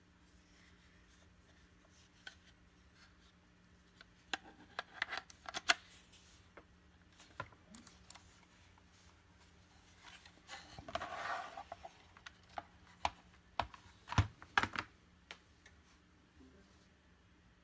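Handling noises: scattered sharp clicks and knocks, with a short rubbing rustle about eleven seconds in.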